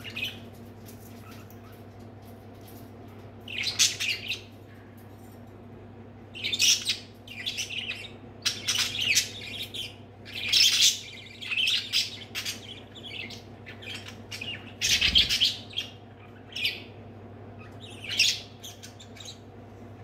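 Budgerigars chirping and squawking in short, repeated bursts, starting a few seconds in and coming thickest in the middle, over a steady low hum.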